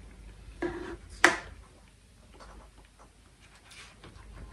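Handling of a metal spoon and a small plastic jelly cup: a soft short sound, then one sharp click about a second in, with faint small ticks after it.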